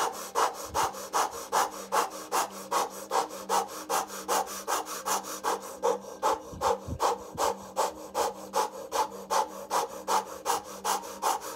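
A woman breathing fast and forcefully in and out through pursed lips in an even rhythm, about two and a half breaths a second: the rapid mouth-breathing of a breathwork exercise.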